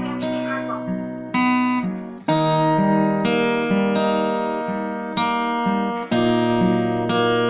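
Acoustic guitar strumming chords with no singing, the opening of a song, with fresh strokes about a second and a half in, again just after two seconds, and near six seconds.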